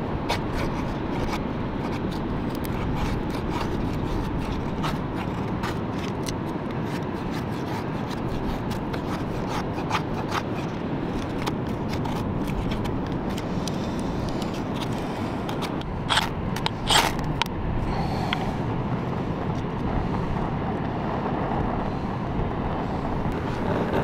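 Knife shaving thin curls off a wooden stick to make a feather stick: a run of short, sharp scraping clicks, with a couple of louder strokes near two-thirds of the way through, over a steady rushing background noise.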